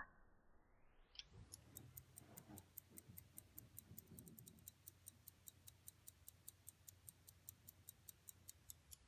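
Waltham 15-jewel pocket watch movement ticking steadily and faintly, about five ticks a second. The run of ticks begins about a second in, after a single duller tick at the start.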